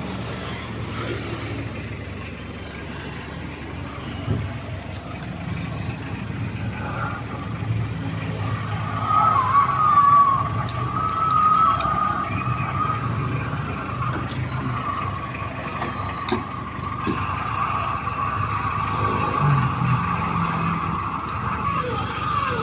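Bucket truck's engine running steadily, with a wavering high whine that comes in about eight seconds in and stays, louder from there, while the aerial bucket is moved. A few light clicks from handling the camera mount.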